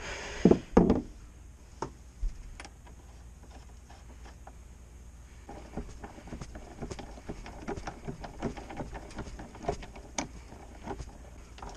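Hand tools on the metal of a dirt bike's swingarm and axle: two knocks about half a second in, then a run of light, irregular clicks and taps from about five seconds in.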